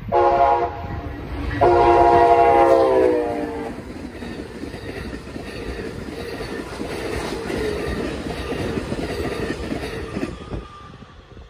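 Amtrak passenger train passing close by. The locomotive's air horn sounds a short blast, then a long one whose pitch drops as the locomotive goes past, the end of a grade-crossing horn signal. Then the steady rolling noise of the bilevel Superliner cars going by, fading near the end.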